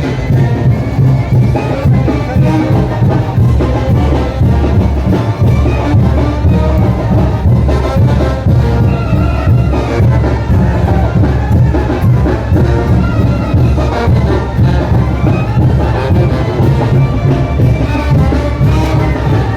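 Mexican brass banda playing a son de chinelo, the carnival dance tune, with trumpets and trombones over a steady drum beat, loud throughout.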